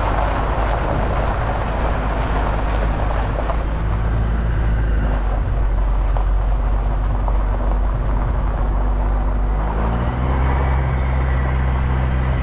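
Vehicle driving on a dirt road heard from inside the cab: a steady engine hum under tyre and road noise. About ten seconds in, the engine note rises as it picks up revs.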